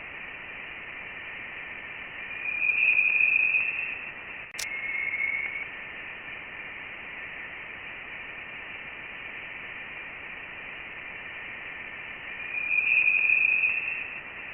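Sonified Voyager 1 plasma-wave recording from interstellar space: a steady static hiss with a high whining tone that swells twice, about two seconds in and again near the end. A single sharp click comes about four and a half seconds in.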